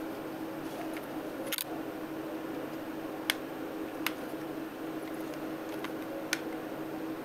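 Several sharp small clicks and taps of a plastic-and-acrylic digital photo frame being handled and its parts fitted together, spread out over a steady low hum.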